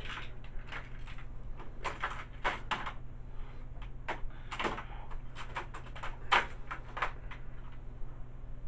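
Scattered knocks and clicks of household things being handled and moved off in the room, a dozen or so at uneven intervals with a louder one about six seconds in, over a low steady hum.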